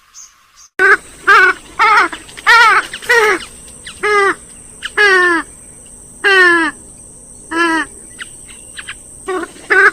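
Purple swamphen calling, as used in a lure recording: a run of about eleven loud, nasal calls, each short and falling in pitch. The calls come in quick succession at first and then with longer gaps.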